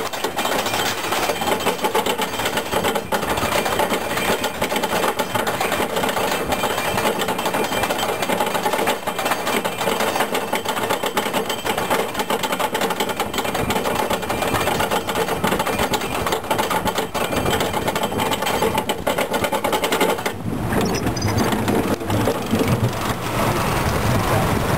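Roller coaster train being hauled up the chain lift hill: a rapid, steady mechanical clatter of the lift chain and the anti-rollback ratchet. About twenty seconds in, a deeper rushing noise comes in under it as the train nears the crest.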